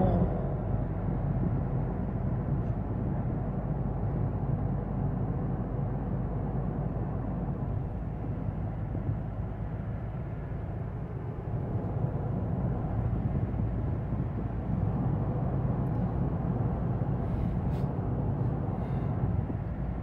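Steady road and engine noise inside a car's cabin while driving at highway speed.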